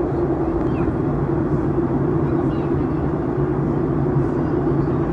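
Airliner cabin noise heard inside the cabin: a steady drone of engines and rushing air with a constant low hum.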